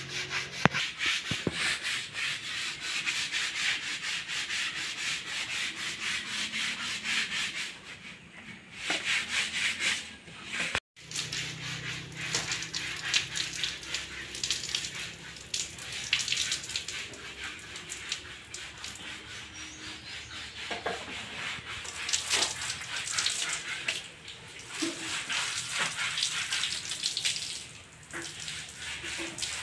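Stiff hand brush scrubbing a soapy concrete wall in quick, rhythmic strokes. After a short break near the middle, irregular scraping strokes follow, fitting a broom sweeping soapy water over a wet concrete floor.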